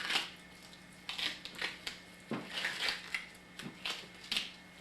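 A string of short, irregular rustling and scraping bursts, about eight in under five seconds, from hands working on an expanding-foam body prop.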